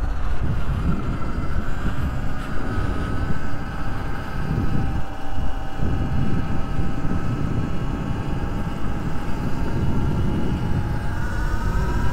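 Sur-Ron X electric dirt bike riding along, its motor giving a steady whine over heavy wind buffeting on the microphone. The whine sags slightly at the start and climbs again near the end as the bike picks up speed.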